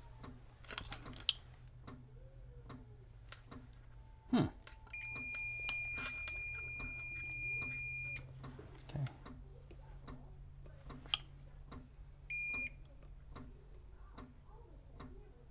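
Multimeter continuity beeper sounding one steady high beep for about three seconds, then a short beep about four seconds later, as the probes find a connection through the repaired XLR cable's pins. Light clicks and a knock from handling the probes and cable come before and around it.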